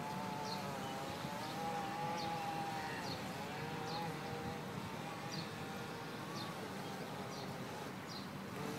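Electric motor of a small radio-controlled model boat whining as it runs across the water, the pitch wavering up and down with the throttle and growing fainter after the middle. Short high chirps repeat about once a second.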